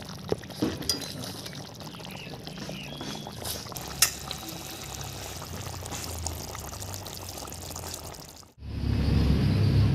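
Egg curry simmering in a large metal wok, bubbling and sputtering steadily, with a few sharp clicks of a steel spatula against the pot in the first second and again about four seconds in. Near the end it cuts off abruptly and gives way to a louder low rumble.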